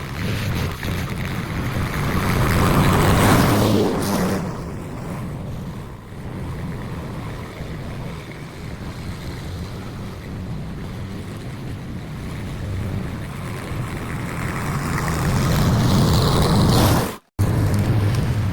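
Lawn mower engine running, overlaid with rain and wind noise on the microphone. It swells louder twice, and the sound drops out for a split second near the end.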